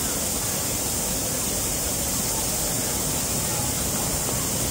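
River water rushing steadily over a shallow rocky cascade.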